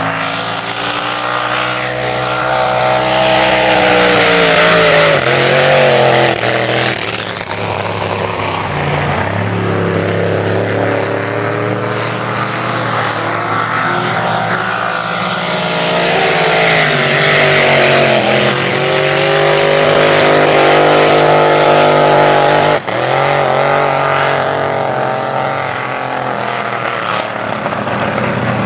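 Supercharged race-boat engines running hard as two displacement-class powerboats race past, the engine note rising and falling as they accelerate and turn around the buoys. A momentary break in the sound comes about three quarters of the way through.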